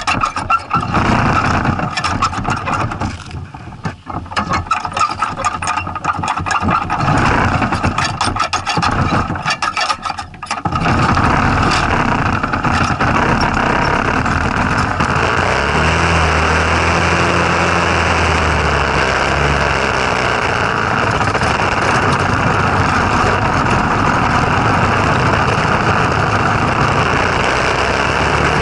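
Tecumseh small engine on a go kart running under way, choppy and uneven for the first ten seconds or so, then running steadily from about ten seconds in.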